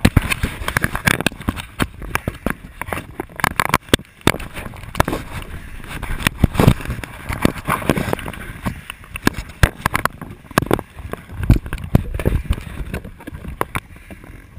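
Gloved hand handling a helmet-mounted camera, with turnout-coat fabric rubbing against it: a dense, uneven run of scrapes, knocks and rustles right on the microphone.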